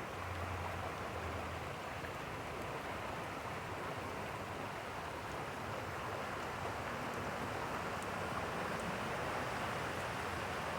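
Steady rushing of fast-flowing, rain-swollen stream water, mixed with falling rain.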